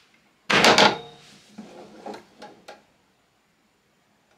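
Wooden boards being shifted and knocked against a benchtop drill press's table while being lined up under the bit: one loud clatter with a brief metallic ring, then a few lighter knocks.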